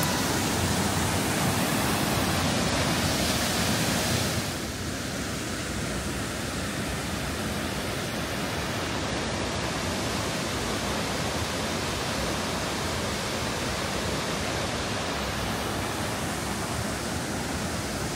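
Aira Force waterfall: a steady rush of falling water. It is louder at first and drops a little about four seconds in, then holds steady.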